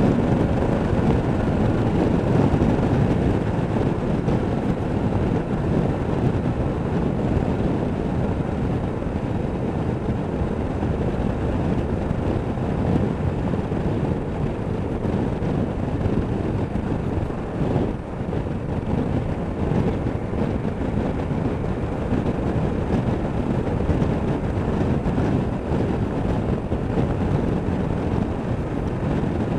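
Honda Deauville NT650V's V-twin engine running at steady road speed, mixed with wind noise on the microphone.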